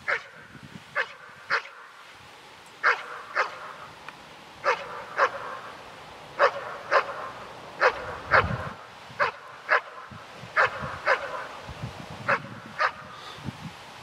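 German Shepherd barking steadily at the helper, sharp barks mostly in pairs about half a second apart. This is the guarding (bark and hold) of IGP protection work, with the dog sitting in front of the motionless decoy.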